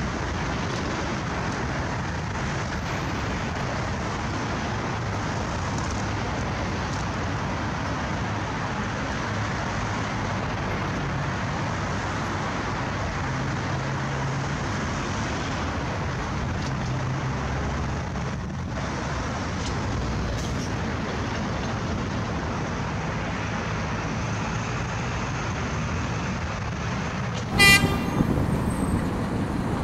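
Steady traffic noise while a Muki freight tram towing a MillFAV metro train comes up the track. Near the end, a short loud warning toot, then the tram's wheels rumbling on the rails.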